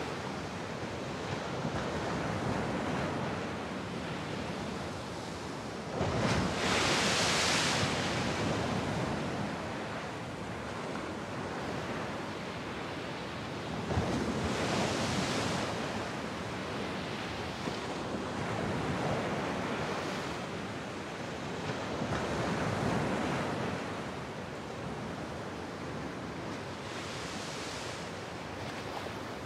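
Ocean surf breaking against coastal rocks: a steady wash of sea, with a wave surging in and breaking four times, every seven or eight seconds.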